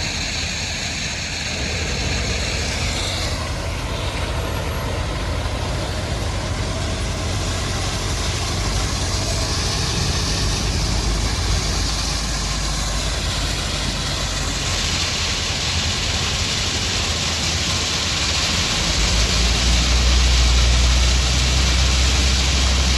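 Heavy earthmoving machinery engine running steadily under a broad hiss; the low rumble grows louder near the end.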